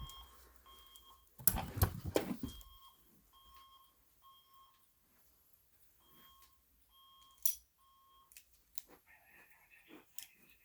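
Fire alarm system in alarm, sounding short, faint electronic beeps about two a second in bursts with pauses between. A few loud knocks come about a second and a half in, and a single sharp click near the end.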